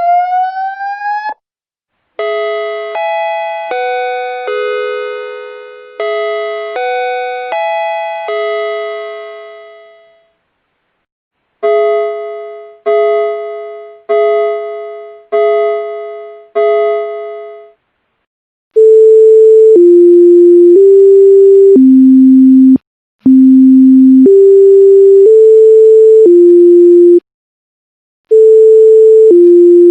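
Electronic warning-siren tones. A rising wail ends about a second in. Then come two four-note chime phrases whose last notes ring out, five repeated chime strikes, and steady held tones stepping down and up in pitch in four-note groups separated by short gaps.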